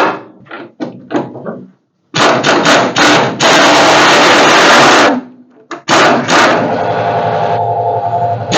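Workshop tool noise on old suspension hardware: a quick run of sharp impacts, then about two seconds of loud steady noise, then two more sharp hits and a steadier running sound.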